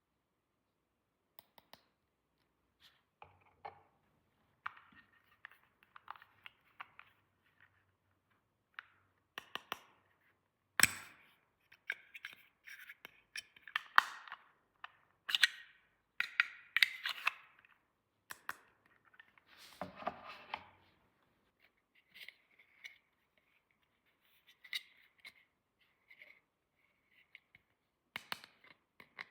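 Hands unpacking and handling small plastic toy pieces and their packaging: irregular clicks, taps, scrapes and rustles, busiest in the middle and lighter toward the end.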